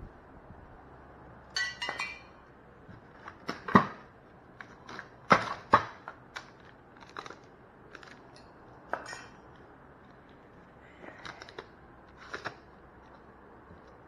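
Scattered clicks, knocks and clinks of metal window-AC mounting-bracket parts and packing being handled, with a short scrape about two seconds in and the loudest knocks around four and five and a half seconds in.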